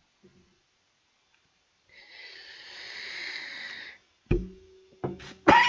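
A man drawing a long breath at his mouth: a breathy hiss that swells for about two seconds, then a sharp knock, then the start of a cough as he clears his throat near the end.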